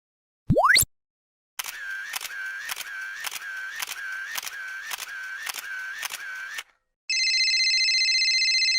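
A run of separate sound effects: a short rising pitch glide, then about nine sharp clicks roughly two a second with a ringing tone under each, then a steady buzzing electronic tone for about two seconds.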